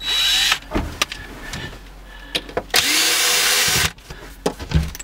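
Cordless drill/driver run in two short bursts, about half a second and then about a second, backing the screws out of a wooden access panel. The motor's pitch rises as each burst starts, and there are light clicks of handling between the bursts.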